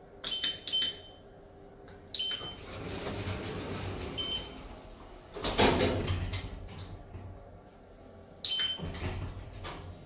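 Schindler 3300 lift keypad beeping twice as a floor number is pressed, then the lift doors sliding shut, with the loudest sound a thud about five and a half seconds in, and a few more short beeps as the car sets off.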